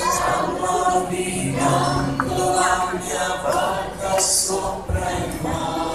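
Many voices singing together with music, like a large crowd singing along.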